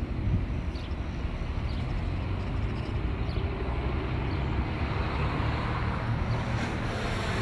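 Steady outdoor noise with an irregular low rumble, typical of wind blowing across the microphone.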